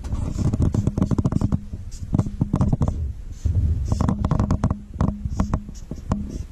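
Black felt-tip marker writing Chinese characters on paper laid on a tabletop: a quick run of short, scratchy, slightly squeaky strokes, each one thudding faintly through the table.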